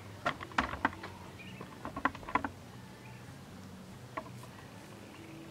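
Short, sharp taps in small irregular clusters: three in the first second, a quick group of four about two seconds in, and a single one near four seconds, over a faint steady low hum.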